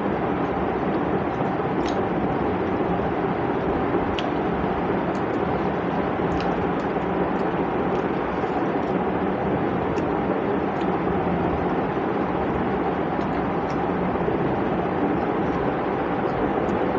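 Steady background rumble and hiss at an even level, with a few faint small clicks from eating off a plate by hand.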